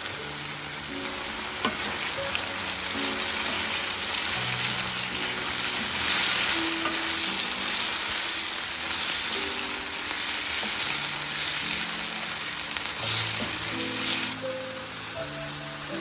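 Cubes of silken tofu sizzling steadily as they fry in hot oil in a frying pan, turned now and then with a wooden spatula. A few small clicks are heard, and quiet background music plays underneath.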